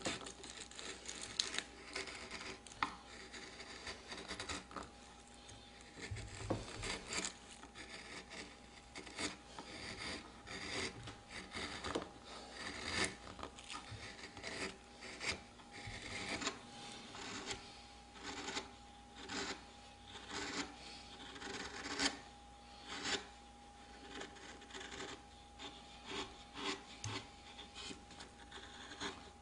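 Hand carving gouges paring a wooden chair crest rail: a run of short scraping cuts, about one or two a second.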